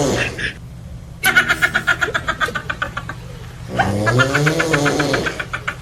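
A person snoring: a rattling snore lasting about two and a half seconds, then a voiced breath out whose pitch rises and falls, with the tail of another such breath at the start.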